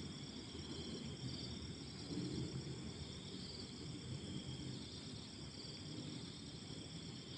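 Night insects, likely crickets, chirping: short high trills repeating every second or two over a steady high-pitched drone, with a faint low rumble underneath.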